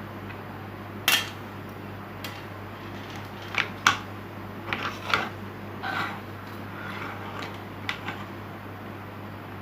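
Scattered clicks and clinks of small hard objects, tools and a circuit board, being handled and set down on a workbench, with the loudest knocks about a second in and near four seconds in, over a steady low hum.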